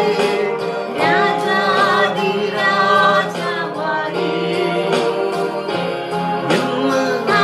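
A song: a singing voice carrying a melody over instrumental accompaniment, at a steady level.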